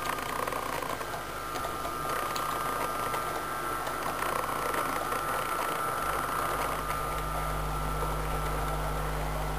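Model train running past: the locomotive's electric motor whirs steadily and the wheels of the locomotive and its wagons run along the rails.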